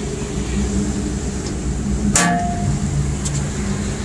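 Tugboat's diesel engines running with a steady low drone, with one sharp metallic clank about two seconds in.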